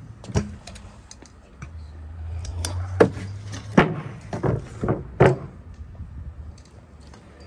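Stunt scooter wheels rolling over a plywood pallet ramp and pavement: a low rumble, then a string of sharp clacks as the wheels and deck knock down onto the wood and the ground, the loudest two about three and four seconds in.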